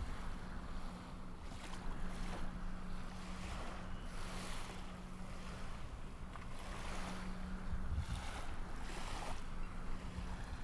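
Rushing wind-and-water noise that swells and fades every second or two, over a steady low hum.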